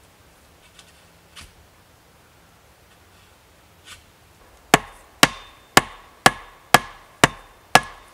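Hatchet blade striking a short wooden stick: seven sharp knocks about two a second, each with a brief ringing note, after a few faint knocks.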